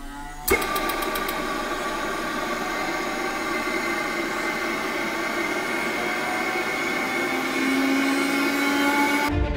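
High-speed electric starter generator (the prototype GT50 unit) spinning on a motor test bench: it starts suddenly with a few clicks about half a second in, then gives a steady multi-tone mechanical whine that grows a little louder with a slowly rising lower tone near the end, before cutting off abruptly.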